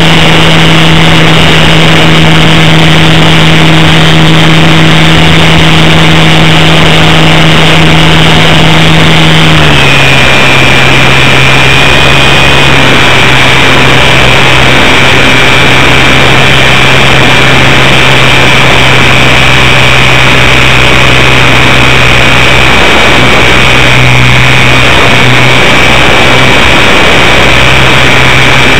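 RC Super Cub LP float plane's electric motor and propeller heard from an onboard camera: a loud, steady drone with a high whine over rushing wind noise. About ten seconds in, the pitch drops a step as the throttle is eased back, then holds steady.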